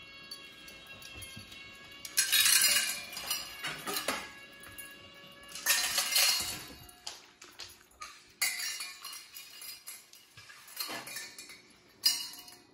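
PetSafe Healthy Pet Simply Feed automatic pet feeder running with a steady whine, then dry kibble and stainless steel bowls clattering in loud bursts about two, six, eight and a half and twelve seconds in, with lighter metallic clinks between as the cats eat from the bowls.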